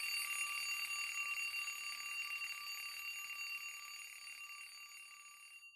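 Logo intro sound effect: a steady, high, ringing electronic tone over a hiss, fading slowly and then cutting off near the end, leaving faint tones ringing briefly.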